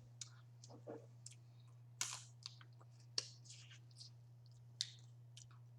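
Faint, scattered clicks and cracks of boiled crawfish shells being broken and peeled by hand, with three sharper cracks at about two, three and five seconds in.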